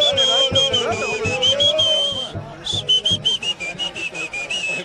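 Football supporters' chant: voices singing a held melody over a steady drum beat, with a whistle blown in quick rhythmic toots that step up and down in pitch. The whistle breaks off briefly a little past halfway, then carries on.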